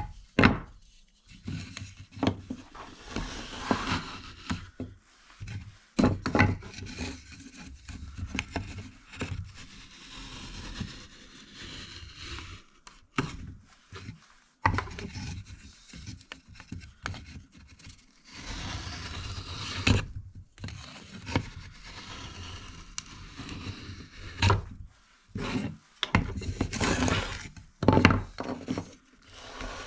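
Wooden boards and a wooden plane being handled on a wooden workbench: irregular knocks of wood set down on wood, with short stretches of scraping as pieces slide across the bench top.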